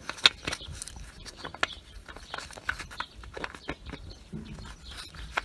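Irregular clicks and light knocks of tools and a metal plug as the front differential's drain plug is screwed back in, the sharpest click just after the start.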